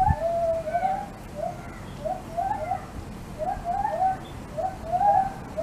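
A bird calling over and over in short, quick mid-pitched notes, in groups of two or three.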